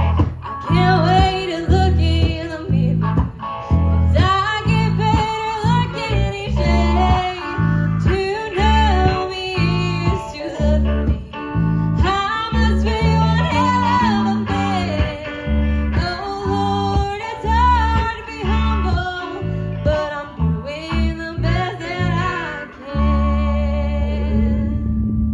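Live country band playing with guitar to the fore, closing on a chord held for the last couple of seconds.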